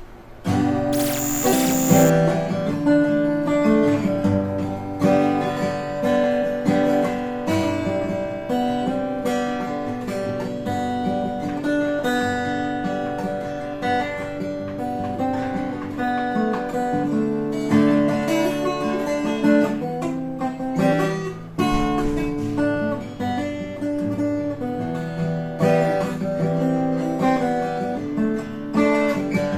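A Clifton OME acoustic guitar from the A2 series being played, with plucked notes and chords starting about half a second in and continuing without a break.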